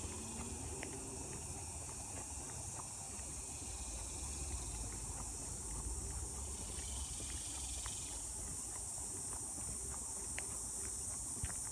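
Insects calling in a steady high-pitched drone, with a second, lower insect call that stops about eight seconds in. Faint footsteps on a paved path and a low rumble lie underneath.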